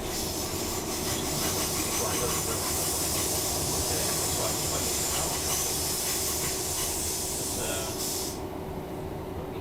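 Class 319 electric multiple unit running, heard from inside the carriage: a steady rumble with a steady hum, and a loud hiss over it that cuts off about eight seconds in.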